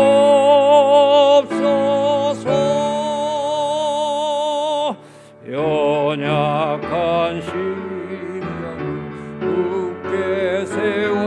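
A Korean hymn sung with heavy vibrato over instrumental accompaniment. The end of verse 2 is held on a long note, there is a brief pause about five seconds in, and then verse 3 begins.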